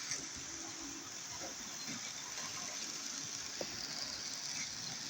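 Hornby Class 56 model diesel locomotive running slowly on its track: a steady whirring hiss from the motor and wheels, with an occasional faint click.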